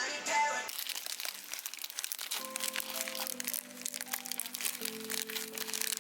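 Background music with sustained held notes, over a dense crackling that starts about a second in.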